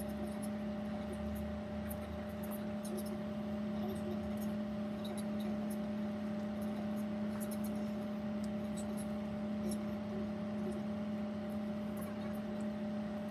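A steady machine hum with a strong low tone and a fainter higher one over a hiss, with faint scattered ticks throughout.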